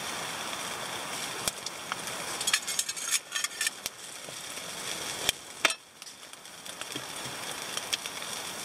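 Chicken sizzling on the wire grill of a shichirin, a clay charcoal brazier, over glowing charcoal, with sharp crackles and pops: a cluster about three seconds in and two louder pops about five and a half seconds in.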